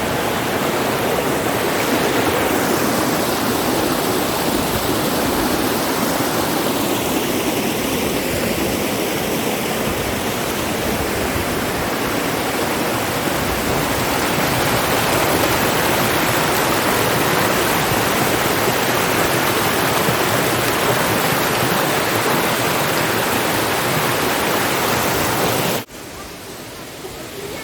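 Waterfall rushing: a steady, loud wash of falling water that cuts off suddenly near the end.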